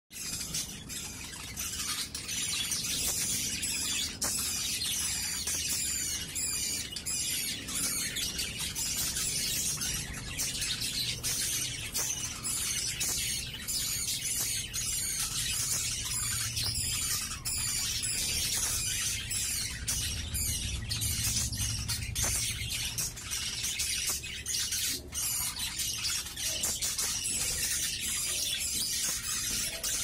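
Budgerigars chirping in a rapid, continuous run of short, high, squiggly chirps.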